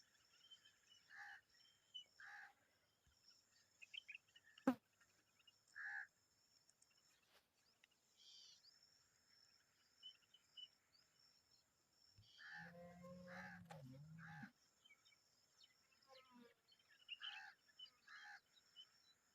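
Common babblers, an adult and chicks, calling faintly with short harsh chirps scattered every second or few. There is a sharp click about five seconds in, and a longer, lower-pitched sound of about two seconds just past the middle.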